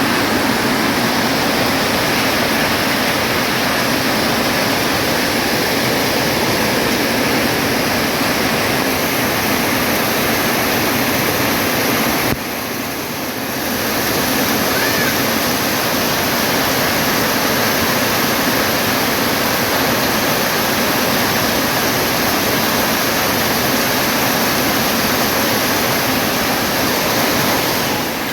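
Heavy rain pouring down in a steady, dense hiss, with a brief dip in level about twelve seconds in.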